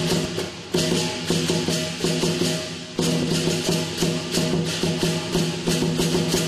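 Lion dance percussion band playing a fast, steady beat: a large Chinese drum with crashing cymbals and a ringing gong, the cymbals' hiss sustained over the strikes.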